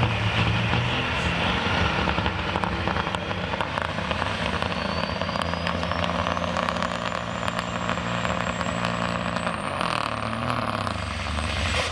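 Turbo-diesel engine of a Pro Stock pulling semi truck running steadily at low revs as it takes up the load of the sled, with a thin turbocharger whistle rising slowly in pitch. About ten seconds in the engine note dips and picks up again as smoke starts from the stacks.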